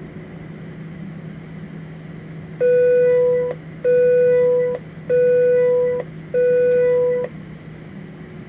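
Four long electronic beeps, each just under a second and evenly spaced about 1.2 s apart, sounding over the steady low hum of an Airbus A320 cabin on the ground before takeoff.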